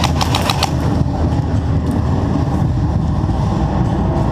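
Steady heavy rumble of wind and handling noise on the microphone, with a quick run of about five sharp cracks in the first second from airsoft gun fire, and one fainter crack about two seconds in.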